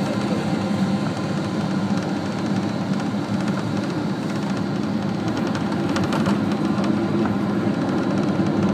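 Boeing 777 jet engines and rushing airflow heard from inside the cabin during landing: a loud, steady rumble that grows slightly louder near the end.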